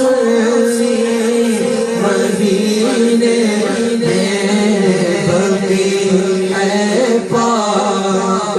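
Male voice singing an Urdu naat (devotional poem) in long, drawn-out held notes that shift pitch a few times.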